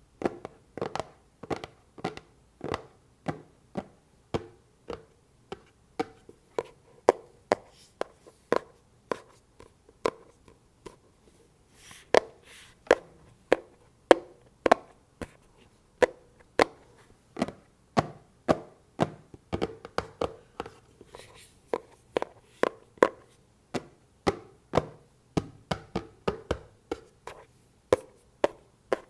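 Fingers tapping on a box in a quick, uneven run of sharp taps, about two to three a second, with a short scratch across its surface about twelve seconds in.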